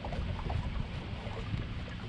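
Low, steady rumble of a fishing boat on the water, with wind on the microphone.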